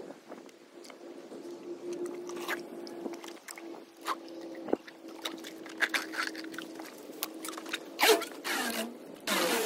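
Scraping and clicking of corrugated plastic drain pipe and a PVC guide pipe being handled and pulled through a trench under a sidewalk, over a steady hum that stops about eight seconds in. A louder scrape follows, and a loud rushing noise starts just before the end.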